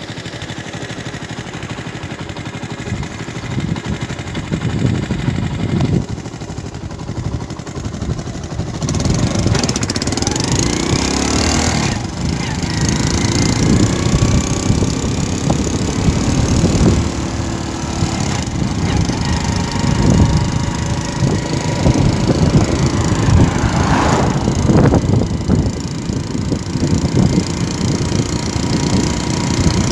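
Engine of a moving road vehicle running steadily, with wind rushing over the microphone as it travels.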